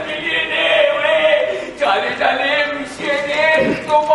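Choir-like singing voices in a slow devotional chant, with long held notes broken into phrases.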